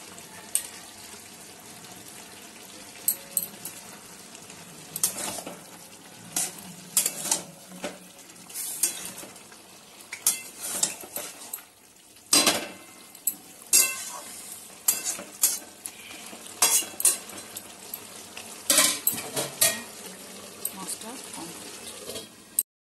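Metal spatula scraping and clinking irregularly against a metal pan while stirring a sizzling fish curry. The sound cuts off suddenly near the end.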